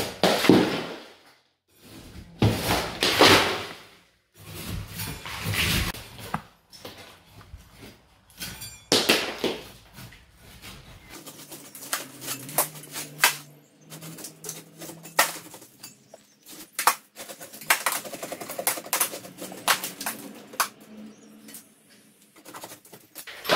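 Old lath-and-plaster ceiling being pulled down by hand. Several loud crashes of plaster chunks breaking off and hitting the floor come in the first half, then a long run of sharp cracks and smaller bits of debris falling.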